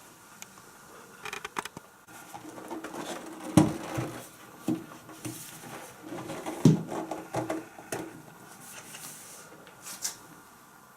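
Irregular knocks, clicks and rubbing from something being handled, with two loudest knocks about three and a half and six and a half seconds in.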